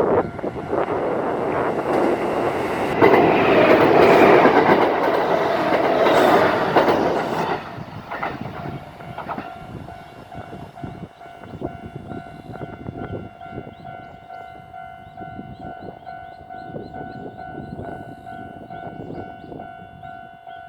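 Train passing a level crossing, loud with wheel clatter for about the first seven seconds, then fading away. From about nine seconds in, a steady repeating ringing tone goes on, the crossing's warning signal still sounding.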